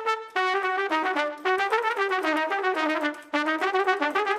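Background music: a brass melody led by trumpet, moving from note to note with short breaks between phrases.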